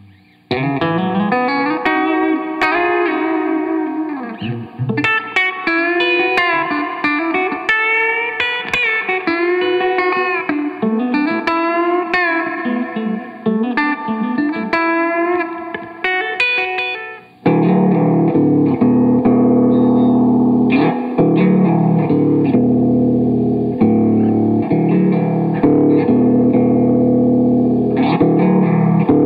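Electric guitar played through a Dr. Scientist Cosmichorus chorus pedal into a Divided by 13 EDT 13/29 tube amp. It starts with single-note lines that waver in pitch from the chorus, then about 17 seconds in switches to fuller, sustained chords.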